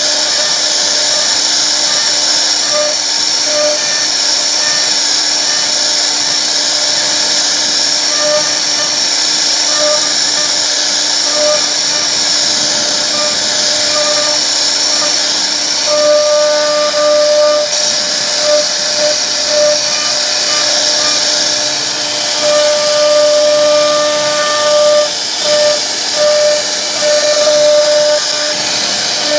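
CNC router spindle whining steadily at a high pitch as its bit carves a wooden bed panel, with a lower tone that comes and goes in short spurts, held longer in the second half.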